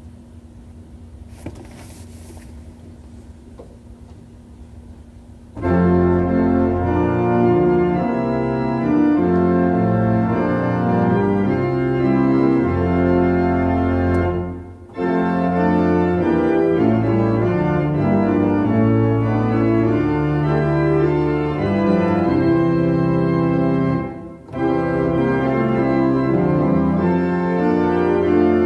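Church organ playing a hymn in full sustained chords with a deep bass line, starting about six seconds in after a few quiet seconds. The playing breaks off briefly twice, at the ends of lines.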